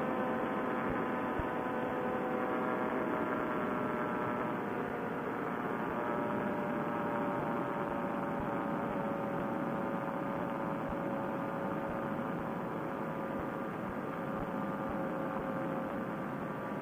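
Paramotor's Vittorazi Moster two-stroke engine and propeller droning steadily in flight, its pitch easing slightly lower. It is heard thin and band-limited through a Bluetooth headset microphone.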